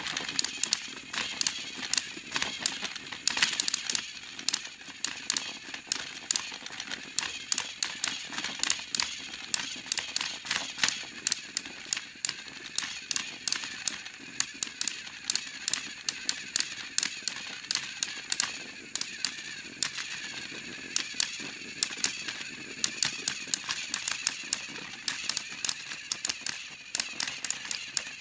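Two battery-powered TrackMaster toy train engines running against each other in a tug of war: a steady high motor whir with rapid, irregular clicking and rattling from their gears and wheels on the plastic track.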